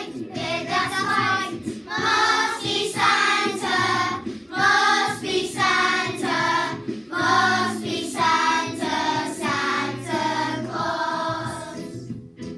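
A choir of primary-school children singing a Christmas song over instrumental accompaniment, in short phrases. The voices stop just before the end while the accompaniment plays on.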